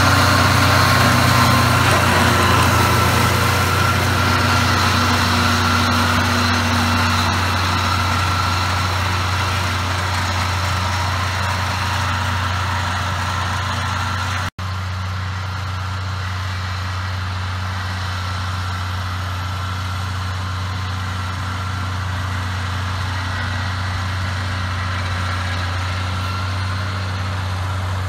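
John Deere 4250's six-cylinder turbo diesel running steadily under load while it pulls a trailed mower through standing grass. The sound breaks off for an instant about halfway through, then comes back more distant and duller.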